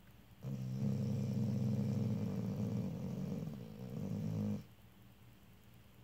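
Sleeping vizsla dog snoring: one long, low snore lasting about four seconds, dipping briefly just before it stops.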